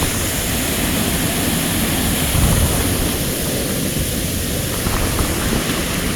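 Waterfall rushing: a steady, even roar of falling water with a deep low rumble.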